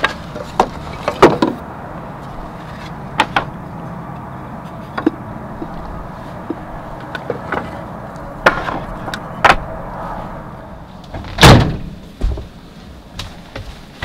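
Wooden boards knocking and clacking against each other as lengths of 1x2 framing and pallet board are sorted and pulled out. Sharp, scattered knocks, with one much louder thump near the end.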